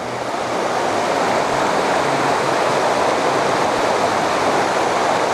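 Rushing river water, a steady loud flow of water over rocks that swells during the first second and then holds even.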